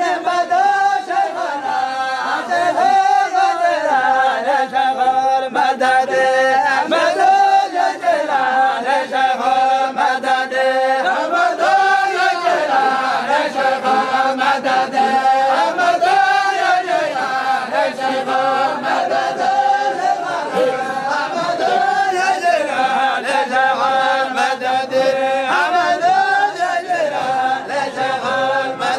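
A group of men chanting dhikr in unison in a Sufi hadrah, repeating a short phrase over and over so that the voices swell and fall about every two seconds.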